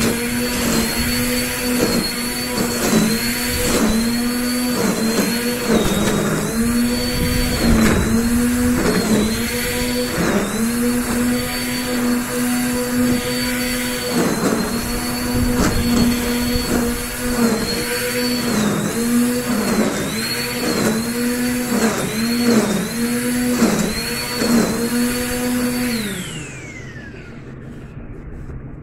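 Black & Decker GrassHog 800 W corded electric string trimmer running, its motor pitch dipping briefly again and again as the line cuts into the grass. About three-quarters of the way through it is switched off and whirs down.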